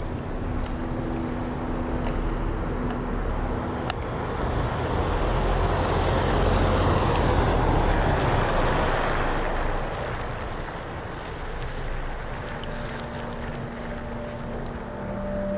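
Storm ambience of rushing rain and wind that swells to a peak about halfway through, then eases off. Underneath it, steady low drone tones for the delta-wave effect sound near the start and again near the end.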